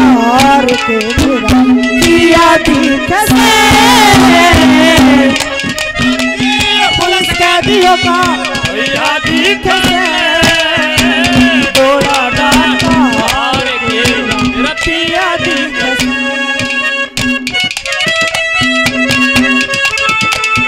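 Instrumental passage of Haryanvi ragni folk music: hand drums keep a fast, steady rhythm under a melody of held notes.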